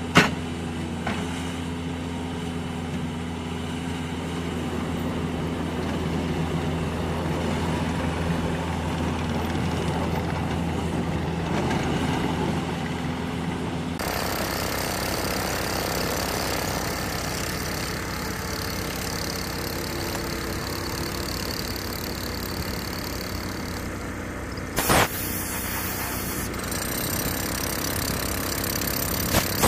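Diesel engine of a Caterpillar 420 backhoe loader running steadily. About halfway through it gives way abruptly to the denser, hissier noise of electric rotary hammer drills boring through a runway repair mat into the pavement, with a brief loud clatter near the end.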